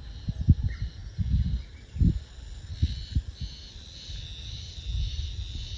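Outdoor wind rumbling on the microphone in irregular gusts, with faint birdsong or insects.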